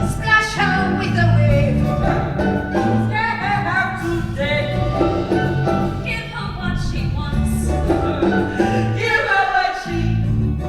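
Singing with instrumental accompaniment: a sung number from a stage musical, with the voice line moving over sustained low notes.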